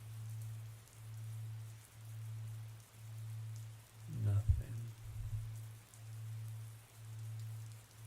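Soft rain ambience under a low hum that swells and fades about once a second. About four seconds in, a brief low rumble.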